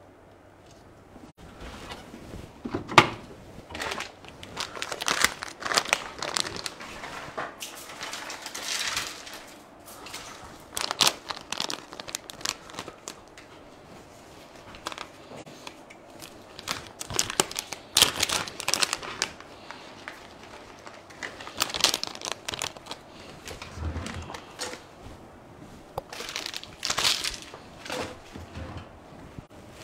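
Plastic bag of dry cat treats crinkling and rustling in irregular bursts, while the treats are scattered onto a tiled floor.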